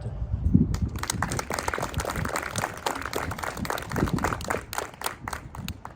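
Audience applauding, starting about a second in and stopping just before the end.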